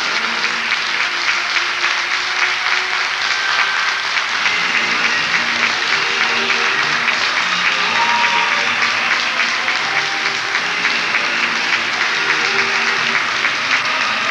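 A theatre audience clapping steadily in thick, continuous applause, with music playing underneath.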